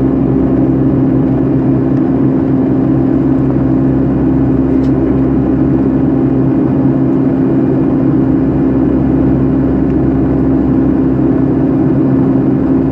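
Boeing 757-300 cabin noise: the jet engines and airflow make a loud, steady drone with a constant low hum, unchanging throughout.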